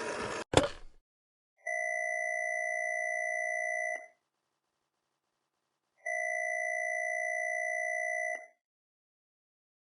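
A short burst of noise cut off by a sharp hit, followed by two long electronic beeps, each a steady two-pitch tone lasting a little over two seconds, with about two seconds of silence between them.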